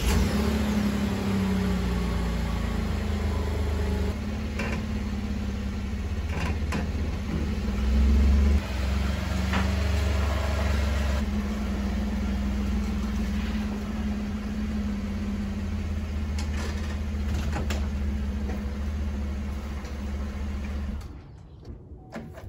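Chevrolet Colorado ZR2 Bison pickup's engine running at low revs in four-wheel-drive low range, no differentials locked, as the truck crawls up a steel articulation ramp, with a few short knocks. The engine sound swells briefly about eight seconds in and cuts off near the end.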